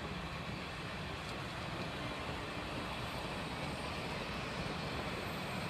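Steady rumble of a passenger train rolling past, growing slightly louder.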